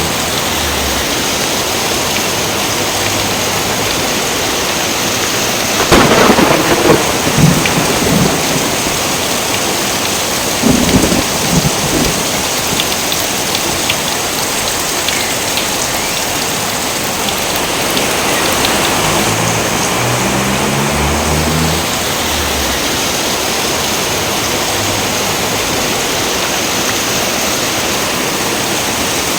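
Steady heavy rain with thunder: two loud, crackling thunderclaps, one about six seconds in and another about eleven seconds in, and a lower rumble about twenty seconds in.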